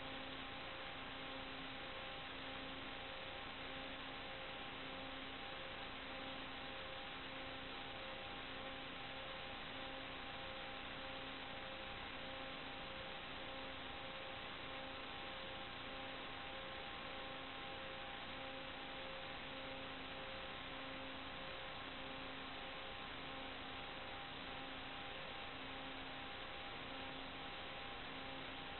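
Steady static hiss with a few constant electronic tones, and a lower tone pulsing on and off about once a second: the audio channel of an analog FPV video link, carrying no sound of the aircraft.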